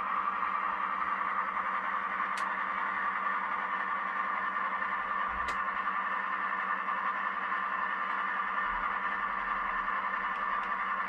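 Sound decoder in an N gauge Graham Farish Class 55 Deltic model playing a recorded Deltic diesel engine drone through the model's small twin speakers. The drone runs steadily while the locomotive moves slowly. Two faint ticks come through, at about two and a half seconds and five and a half seconds.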